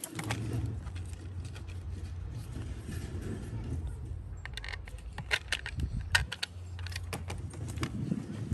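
Small clicks and taps of a plastic mounting plate and its wires being handled and fitted against a siding mounting block, most of them in the second half. A steady low rumble runs underneath.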